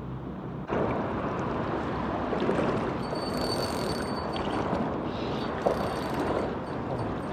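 Clothing rustling against the microphone, starting suddenly about a second in, with short spells of a thin high whine from a spinning reel being wound in.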